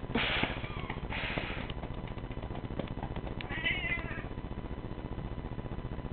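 Siamese cat crying: two harsh, raspy yowls in the first two seconds, then a shorter wavering meow about three and a half seconds in.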